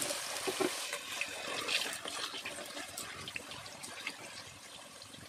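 Raw potato cubes dropped into hot oil, sizzling and crackling at once, the sizzle fading gradually as the oil settles around them.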